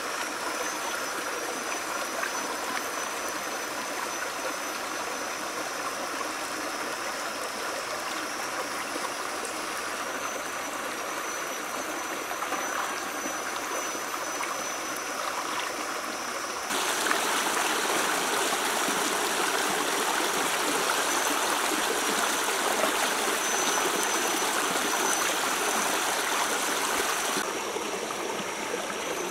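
Shallow rocky stream running over a riffle: a steady rush of flowing water. It turns louder about two thirds of the way in and drops back near the end.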